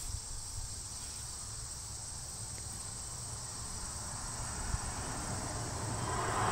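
Crickets trilling steadily in a high, even chirr, with low wind rumble on the microphone; a broad rush of noise rises near the end.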